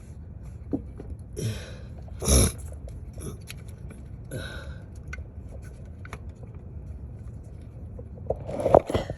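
Scattered clicks, scrapes and knocks of hand work on parts and tools, with one sharp knock about two seconds in and a cluster of knocks near the end, over a low steady hum.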